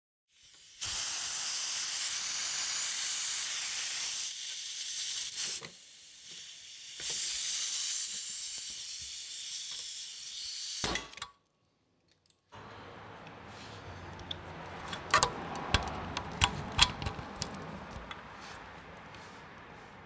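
Compressed air hissing loudly out of a leaking quick-connect coupler fitting whose threads were sealed with dry, pre-applied red threadlocker. The hiss dips and swells for about ten seconds, then cuts off. The owner suspects the bad leak comes from some other fault than the sealant. After a short gap comes a much quieter stretch with a few sharp clicks and no audible leak from the next fitting.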